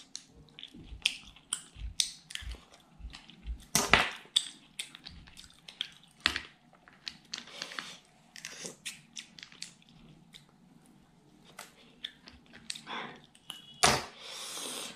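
Close-miked chewing and mouth sounds of a person eating butter clams in curry, with scattered small clicks and smacks, the loudest sharp ones about four seconds in and near the end.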